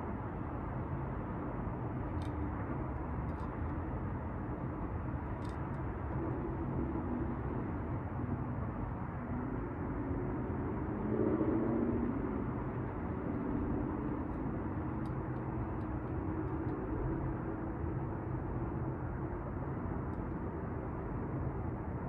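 City street traffic heard from high above: a steady low rumble of cars, with one vehicle's engine hum swelling to a peak about halfway through and then fading.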